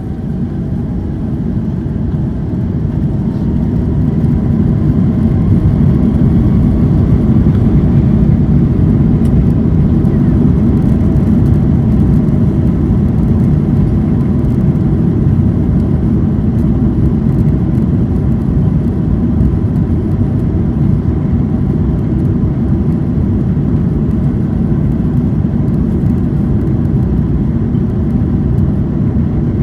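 Airbus A330-300's Rolls-Royce Trent 700 engines heard from inside the cabin, spooling up to takeoff thrust: a deep rumble that swells over the first few seconds with a faint rising whine, then holds loud and steady through the takeoff roll.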